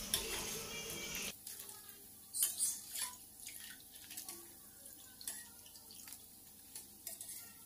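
Hot oil dripping back into the wok from freshly fried peanut crackers (peyek) held in a wire spider strainer to drain. A light sizzle cuts off abruptly about a second in, then scattered faint drips and ticks follow.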